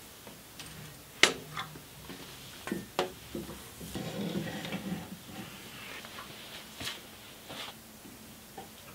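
Rubber coolant hose being handled and worked through a car's engine bay: scattered knocks and clicks, the loudest about a second in, and a rustling scrape around four to five seconds in.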